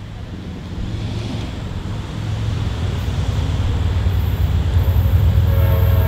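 Approaching Amtrak P42DC diesel locomotive, a low rumble growing steadily louder as it nears. Its multi-tone horn starts to sound near the end.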